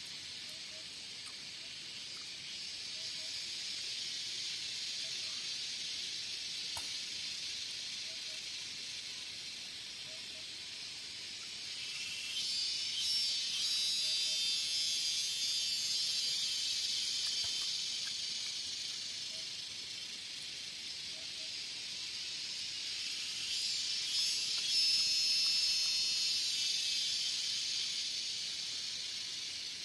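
Cicadas calling in a steady, high, noisy chorus that swells louder twice, about twelve seconds in and again about twenty-four seconds in.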